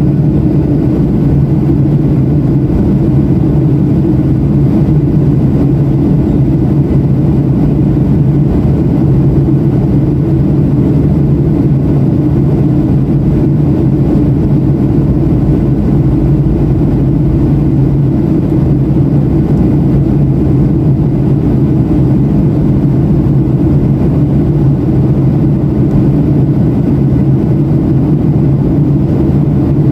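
Steady in-flight cabin noise of a Boeing 737-700 heard from a window seat beside the wing: the CFM56-7B turbofan engine and rushing airflow as a loud, unchanging low drone.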